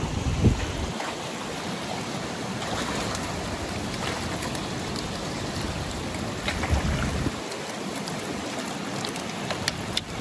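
Water pouring into a concrete trout pond, a steady rush, with scattered splashes and drips as a landing net is dipped in and lifted out holding rainbow trout.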